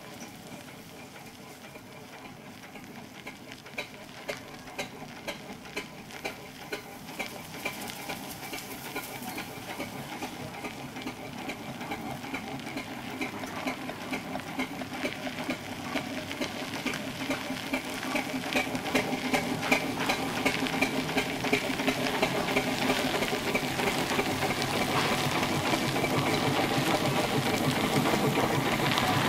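Burrell steam traction engine running slowly under its own power: a steady rhythmic beat of exhaust and motion over a hiss of steam, growing steadily louder as it approaches.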